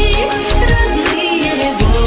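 Instrumental music with a deep bass line and held melodic tones, without singing.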